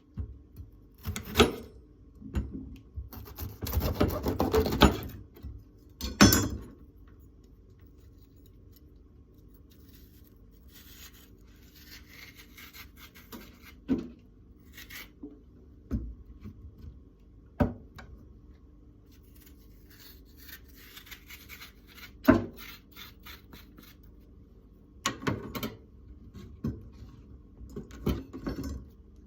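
Kitchen knife cutting bitter melon into thin strips on a cutting board: scattered sharp knocks of the blade hitting the board, a longer scraping stretch about four seconds in, and runs of quick, even slicing strokes.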